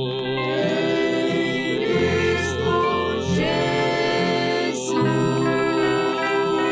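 Gospel hymn music with held chords and no sung words.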